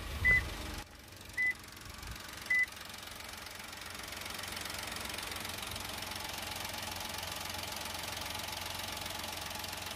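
Toyota Raize's 1KR-VET 1.0-litre turbocharged inline three-cylinder engine idling steadily, heard with the bonnet open. Three short high beeps about a second apart come near the start.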